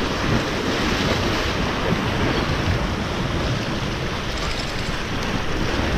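Ocean surf breaking and washing over a rocky shore in a steady rush, with wind buffeting the microphone.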